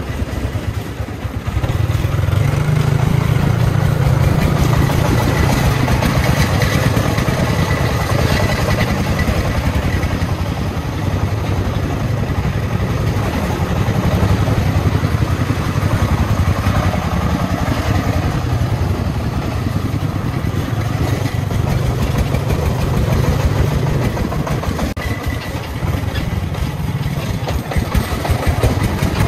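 Vehicle engine running steadily, growing louder about two seconds in.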